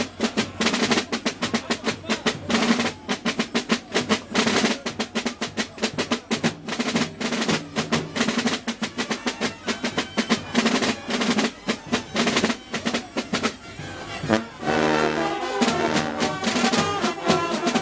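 Carnival brass band playing: drums beat a fast, steady rhythm, and about fourteen seconds in trumpets and other brass come in over the drumming.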